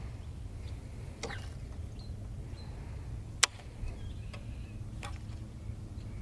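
Handling of fishing rod and reel: a few light clicks over a steady low hum, with one sharp click about three and a half seconds in standing out as the loudest.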